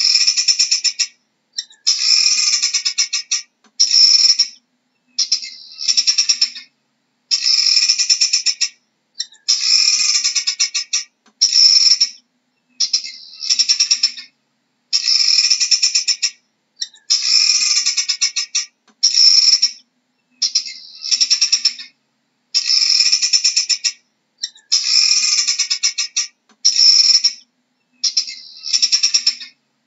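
Helmeted guineafowl calling: a harsh, rapid rattling chatter in repeated bursts of half a second to two seconds, each followed by a brief pause, about twenty bursts in all.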